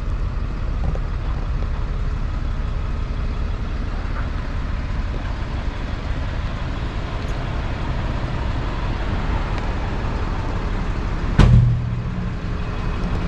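Steady low rumble of an idling vehicle engine, with a single sharp thump about eleven seconds in.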